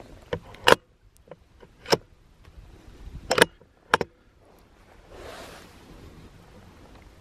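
Bolt-action .22 LR rifle with a Dead Air Mask suppressor: a muffled shot about three-quarters of a second in, then a run of metallic clicks and clacks as the bolt is worked to chamber the next round. A soft rustle follows near the end.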